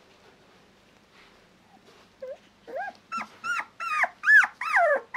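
Black-and-tan Shiba Inu puppy whimpering: after a quiet start, a quick run of short, high cries that rise and fall in pitch, about three a second, getting louder toward the end.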